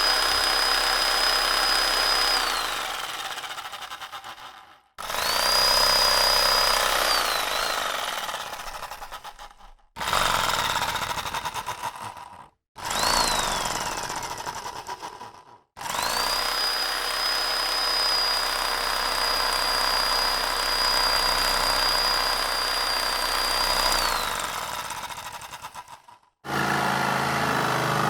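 Electric power tool motor running with a high steady whine, released and winding down with a falling whine, several times over, one run lasting about eight seconds. Near the end a different sound starts: a low steady engine hum.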